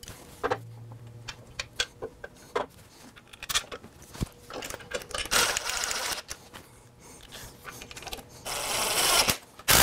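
Scattered metal clicks, knocks and scrapes as a hydraulic bottle jack is handled and set into the steel base frame of a Pitbull motorcycle lift, with two longer scraping stretches, one about halfway and one near the end.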